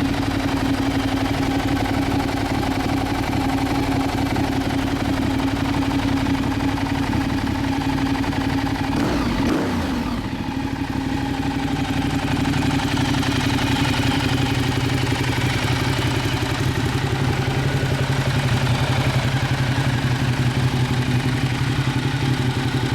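Ducati Diavel's L-twin engine running steadily through an aftermarket silencer. About nine to ten seconds in, the note briefly dips and shifts in pitch, then settles back into a steady run.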